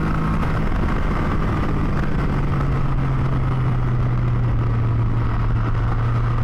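Can-Am Spyder F3-T's Rotax 1330 three-cylinder engine running at a steady cruise. Its pitch eases down slightly in the first second, then holds, under heavy wind and road rush.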